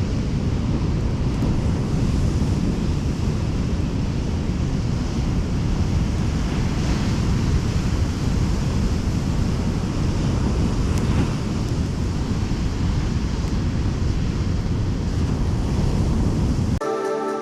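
Wind buffeting the microphone over the steady wash of ocean surf. Music cuts in just before the end.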